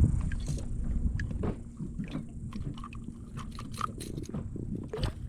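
Scattered small clicks and taps of fishing gear and a fish being handled in a kayak, over a low wind rumble on the microphone.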